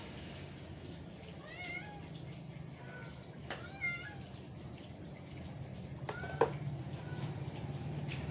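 A cat mewing in short, high, wavering calls, three times, the last one louder and with a sharp click. A steady low hum runs underneath.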